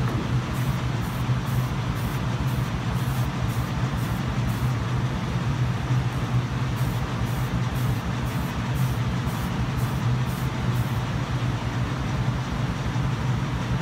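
Aerosol can of filler primer spraying, a steady hiss, under a loud steady low hum from a fan or motor. Faint fast ticks run through the hiss at about three a second, pausing briefly around the middle.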